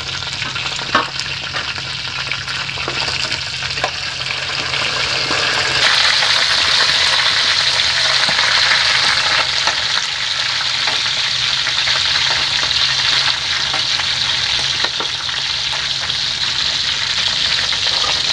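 Free-range chicken pieces frying in their own fat in a large metal pot, sizzling steadily as a spoon stirs them, with a few knocks of the spoon against the pot. The sizzle grows louder about six seconds in.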